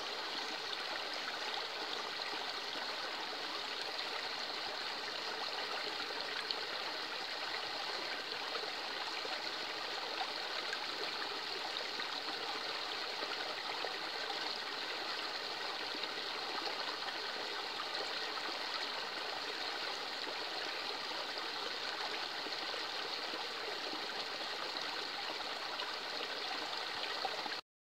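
Shallow woodland stream running over stones with a small cascade upstream: a steady trickling and rushing of water that stops abruptly just before the end.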